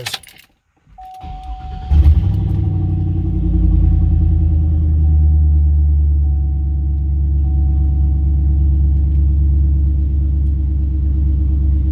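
Turbocharged Cadillac Escalade V8, heard from inside the cab, cranked by the starter and catching about two seconds in on a cold start, then settling into a steady fast cold idle without surging.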